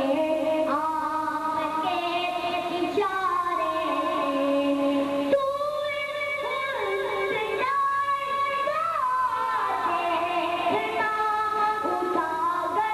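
A boy singing a naat, an Urdu devotional poem in praise of the Prophet Muhammad, into a microphone in a high voice, with long held notes and ornamented glides between them.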